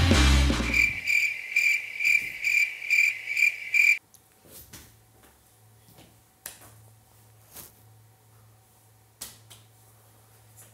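A music cue ends, then crickets chirp in a high, even pulse about three times a second for about three seconds and cut off suddenly. After that it is much quieter, with a few faint clicks over a low hum.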